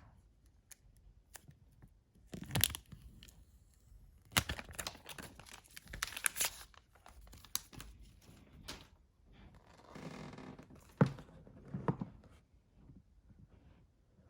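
Paper wrap being torn off a new iPhone 12 Pro box: several bouts of paper tearing and crinkling, with a sharp click about eleven seconds in.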